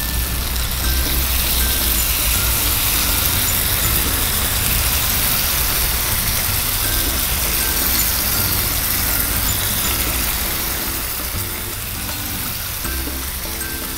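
Chicken curry sizzling in a frying pan as coconut milk is poured in, with background music and a bass line underneath. The sizzle eases a little near the end.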